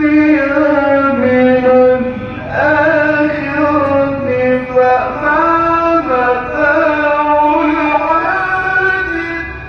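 A man's voice reciting the Quran in the melodic, elongated tajweed style, amplified through a microphone: long held notes that glide and turn between pitches, in several phrases with short breaks between them.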